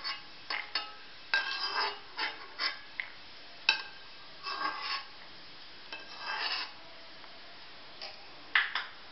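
Perforated metal skimmer scraping around the inside of a kadhai and knocking against a small steel bowl as fried peanuts are scooped out of the oil: short scrapes and metallic clinks at uneven intervals.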